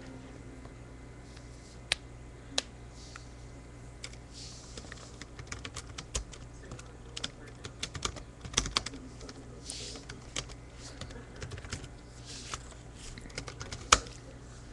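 Typing on a computer keyboard: irregular key clicks in quick runs, with one louder keystroke near the end, over a steady low hum.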